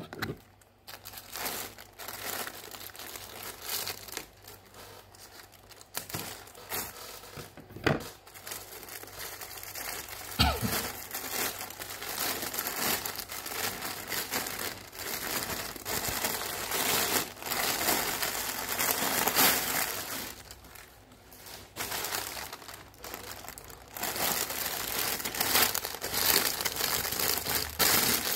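Plastic packaging crinkling and rustling as hands work open a black plastic mailer bag and handle a clear plastic bag inside, with a few sharp snaps. It eases off briefly a little after two-thirds through, then picks up again.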